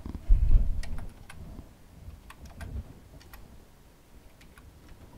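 A dull low thump about a third of a second in, then scattered, irregular clicks, typical of keys being pressed on a computer keyboard to enter a password.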